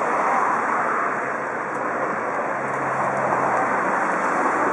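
Steam locomotive hissing steadily. A faint low hum joins about two and a half seconds in and fades about a second and a half later.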